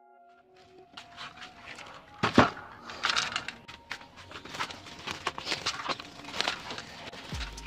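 Plastic mailer pouch crinkling and rustling as it is handled, with a sharp knock a little over two seconds in.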